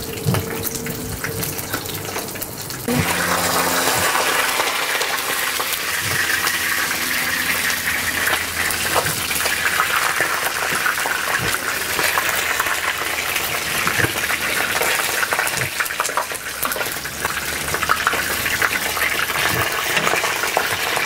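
Two whole barramundi sizzling as they shallow-fry in hot oil, with a dense crackling hiss that steps up louder about three seconds in as the fish are turned. Occasional light clicks of metal tongs against the fish and pan.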